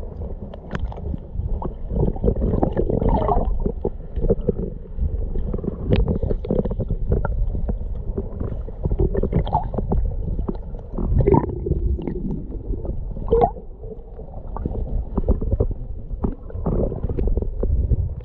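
Muffled low rumble and gurgling of water moving around a submerged camera's microphone, with many short clicks and crackles scattered through it.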